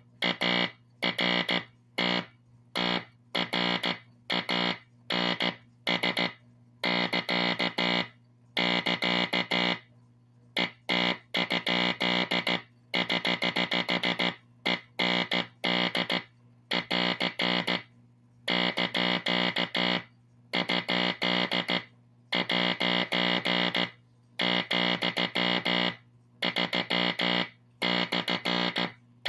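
Morse code beeps from a vintage tube code practice oscillator, keyed by a Teleplex Morse code machine's drum and played through a speaker. A single steady-pitched tone switches on and off in short dots and longer dashes with gaps between characters, and a steady low hum continues underneath, also between the beeps.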